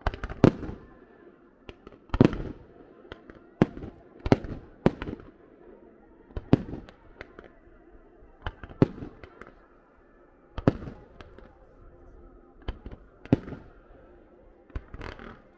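A fireworks display: a string of sharp bangs at irregular intervals, roughly one a second, each trailing off in an echo.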